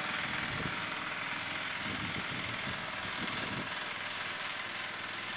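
Small engines of an ATV and a riding lawn mower running steadily, under a steady hiss.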